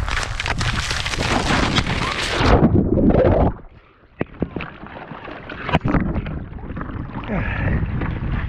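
Skate blades running over thin new lake ice, then about two and a half seconds in a heavy crash as the ice gives way and the skater drops through into the water. After that the sound is suddenly muffled, with scattered knocks and splashing.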